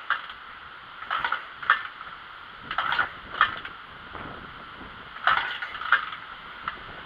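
Attempts to start a BSA motorcycle that has stood for over ten years: a string of sharp, irregular clatters and pops, sometimes in pairs about half a second apart. The engine does not settle into a steady run.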